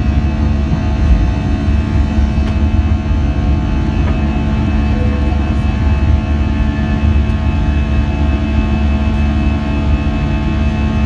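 Airbus A320's twin jet engines at take-off thrust during the initial climb, heard inside the cabin: a steady deep rumble with a few steady humming tones over it.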